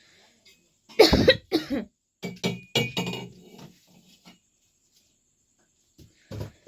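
A person coughing: two loud, harsh coughs about a second in, then a run of shorter, weaker coughs. It then falls quiet until one more short cough near the end.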